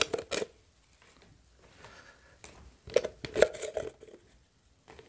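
Crisp kerupuk crackers crackling and rustling as they are handled and set down, in two short bouts: one at the start and one about three seconds in.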